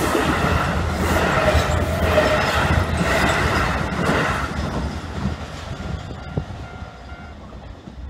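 Keio Line electric commuter train passing close by, its wheels clacking over the rail joints. The sound fades away from about halfway through as the last car goes by.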